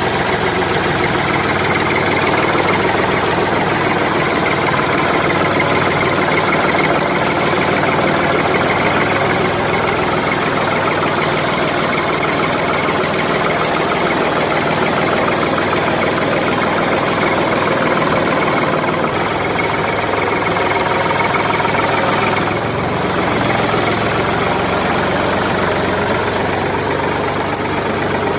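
Mini model tractor's small motor running steadily with a fast, even clatter.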